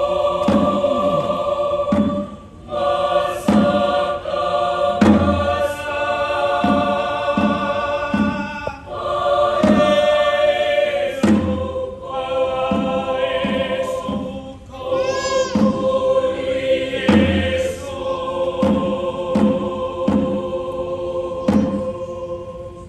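Mixed choir singing long held chords in a chant-like style, with regular short knocks and a deep thump about every six seconds. About two-thirds of the way through, a high wavering glide rises and falls over the chord.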